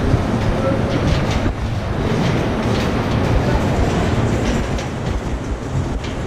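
Steady loud rumble of confectionery factory machinery running, with scattered clatter and knocks.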